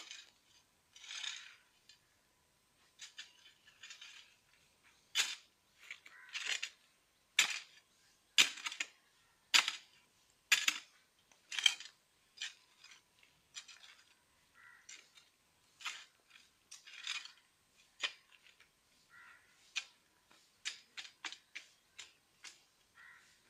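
A hand tool working soil around a freshly planted banana sucker: an irregular run of sharp knocks and short scrapes, roughly one a second, with a quicker cluster near the end.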